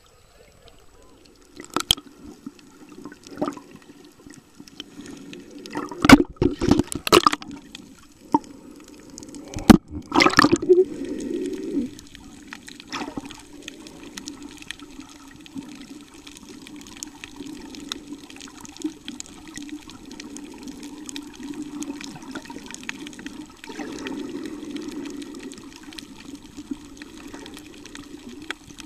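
Seawater splashing and knocking against a camera at the surface, with several sharp splashes in the first twelve seconds or so. After that comes a steady, muffled underwater wash as the camera stays submerged.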